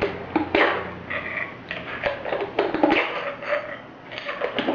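Baffles of a Sirocco SM11 suppressor being slid and dropped into its tube during reassembly: a run of irregular clicks, knocks and scrapes as each baffle goes in.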